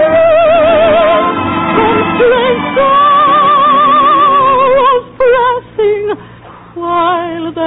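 A soprano singing an operetta song with heavy vibrato over orchestral accompaniment, holding one long high note about three seconds in, then shorter phrases over thinner accompaniment. The sound is the narrow, muffled band of an old radio broadcast recording.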